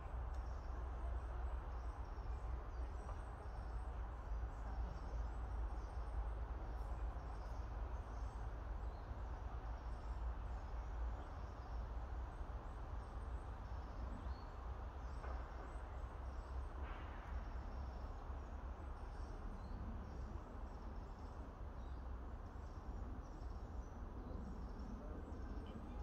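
Steady wind noise on the microphone, a low rumble with a wash of rustle above it, while faint high bird chirps come and go in the background.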